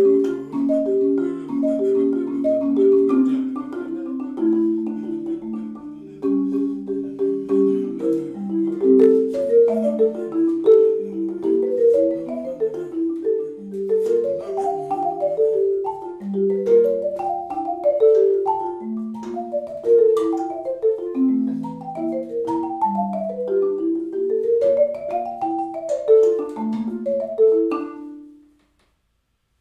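Solo marimba played with mallets: a flowing improvised line of struck notes over chords. It stops on a last held note about 28 seconds in.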